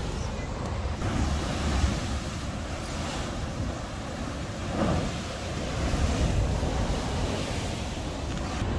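Sea surf surging and churning in a narrow rock chasm, a steady rushing with a low rumble that swells about five seconds in, with some wind buffeting the microphone.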